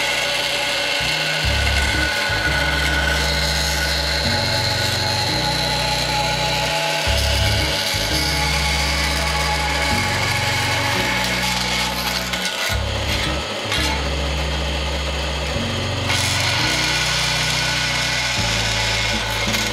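Bench bandsaw running and cutting a thin metal plate: a steady sawing noise with the machine running underneath.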